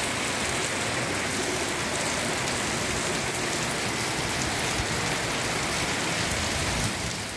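Heavy rain pouring steadily, falling on a paved yard and garden plants.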